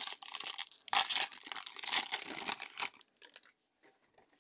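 Foil trading-card pack of 2020 Bowman Draft Sapphire being torn open and crinkled by hand; the crinkling stops about three seconds in, followed by a few faint ticks.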